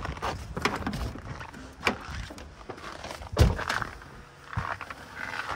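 A Tesla Model 3 door slammed shut hard about halfway through, a heavy thud, with a few smaller knocks and rustles of getting into the car before it. The door shuts like a brick on the frozen car.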